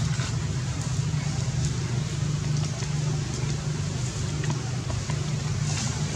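A steady low rumble under a faint even hiss, with a brief rustle near the end.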